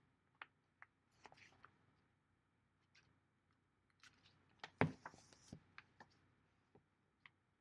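Pages of a paperback guidebook being thumbed and flipped by hand: scattered soft paper rustles and clicks, with the loudest cluster about five seconds in.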